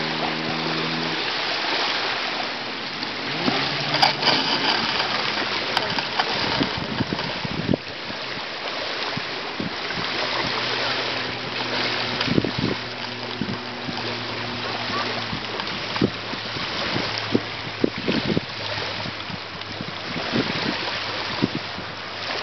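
Wind on the microphone and small waves washing onto a pebble beach, with short clicks and splashes at the water's edge. A low steady motor hum from a boat comes in around the middle.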